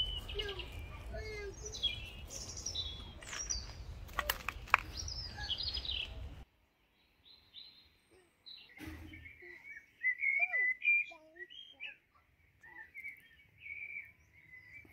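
Small songbirds chirping and singing. Over the first six seconds a low rumble and a few sharp clicks sit under the chirps. About six and a half seconds in, the rumble cuts off abruptly, leaving quieter, busier chirping.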